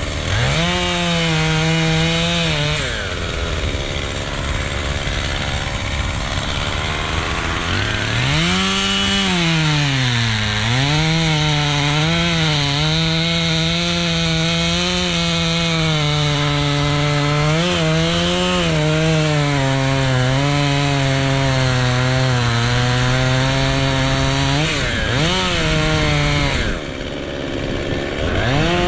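Chainsaw running in a felling cut through a standing tree's trunk, its engine speed dipping and recovering several times as the bar loads in the wood. It eases off briefly near the end before revving up again.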